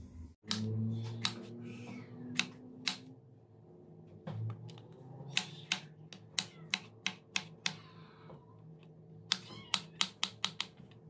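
Kitchen knife chopping zucchini on a plastic cutting board: sharp taps as the blade strikes the board, scattered at first, then steady at about three a second, with a quicker run near the end.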